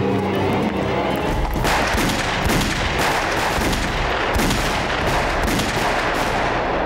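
Sustained rapid gunfire, a dense run of shots starting about a second and a half in. Before it, background music fades out.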